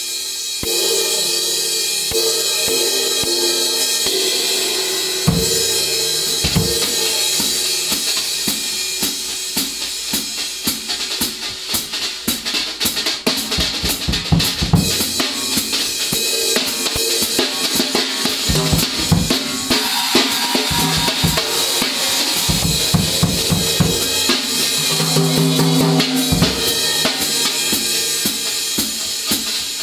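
Drum kit being played. A riveted K Zildjian crash/ride keeps up a continuous sizzling cymbal wash, and bass drum and drum strokes come in about five seconds in as a steady busy pattern.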